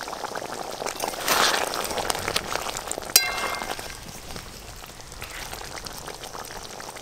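Prawn curry in coconut-milk gravy bubbling and popping at a boil in an aluminium wok, while a metal spatula stirs it. About three seconds in the spatula strikes the pan with one sharp clink that rings briefly.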